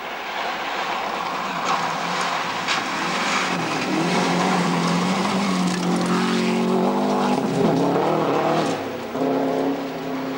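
Subaru Impreza rally car driven hard on a gravel stage: the engine grows louder as the car comes through, loudest about eight seconds in, its pitch stepping up and down with gear changes and lifts, while loose gravel crackles and sprays under the tyres.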